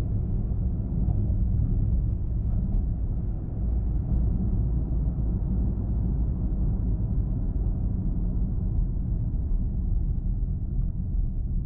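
Car driving steadily on a highway: a continuous low rumble of tyre and engine noise.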